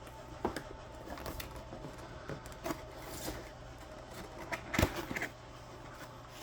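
Scattered light clicks and knocks of plastic being handled as an RC crawler and its packaging are worked on, with a louder cluster of knocks about five seconds in, over a faint steady hum.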